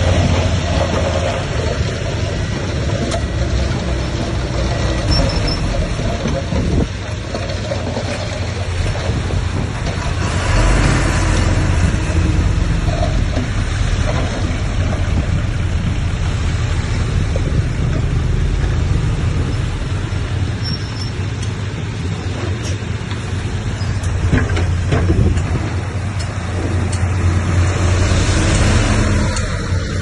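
Heavy diesel earthmoving machinery running steadily with a low engine rumble that swells a few times, with scattered sharp clanks.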